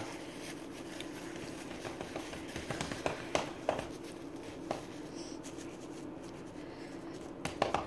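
Quiet room tone with a steady low hum, broken by a few faint taps and rustles of hands handling something small.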